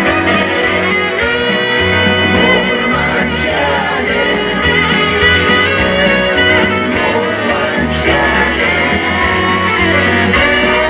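Background music: a song with guitar and a singing voice over a pulsing bass.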